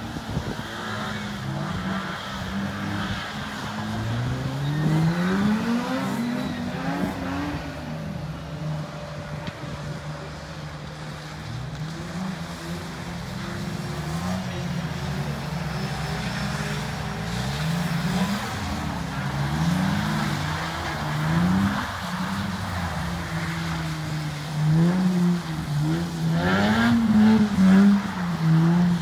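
Several drift cars' engines revving up and down over and over as they slide around the track, getting louder in bursts near the end.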